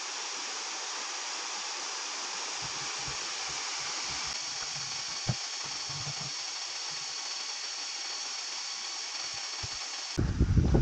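Waterfall rushing: a steady hiss of falling water, with a faint high whine running through it. Near the end a sudden loud low buffeting hits the microphone.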